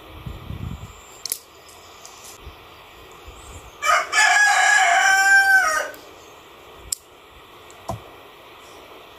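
A rooster crowing once, a long call of about two seconds near the middle, the loudest sound here. A few short sharp clicks come before and after it.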